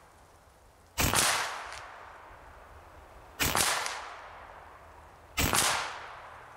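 AEA Challenger Elite .50-caliber big bore PCP air rifle firing three shots, about two to two and a half seconds apart, each a sharp report that trails off over about a second.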